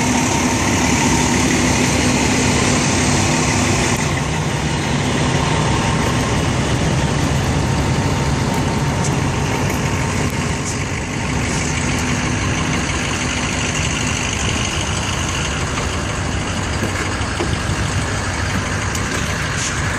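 Fire truck's diesel engine idling steadily, a continuous low hum that eases slightly about four seconds in.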